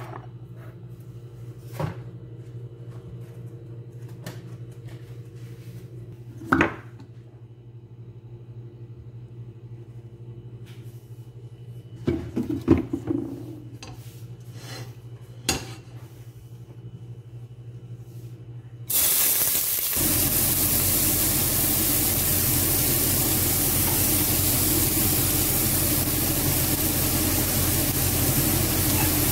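A few clinks and knocks from a stainless steel pot and utensils. About two-thirds of the way through, chopped onion and garlic go into hot oil in the pot and a loud, steady sizzle starts suddenly and keeps going.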